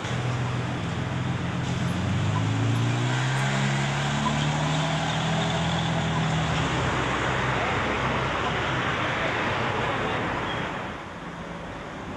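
Road traffic: a car engine whose pitch rises slowly over several seconds as it speeds up, over a steady noise of passing traffic. The sound drops away sharply about eleven seconds in.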